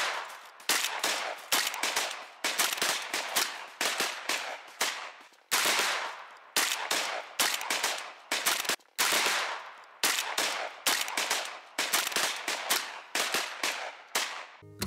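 Shotguns firing in quick succession at flying geese, about two shots a second, each a sharp bang that dies away quickly.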